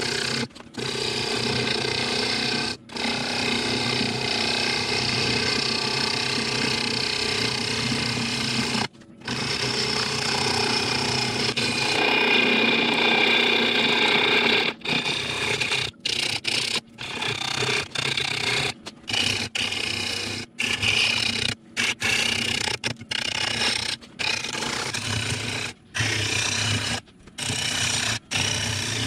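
Bowl gouge cutting into a spinning apple wood blank on a wood lathe: a steady, rough shearing noise as shavings peel off. It breaks off abruptly for short moments, more often in the second half.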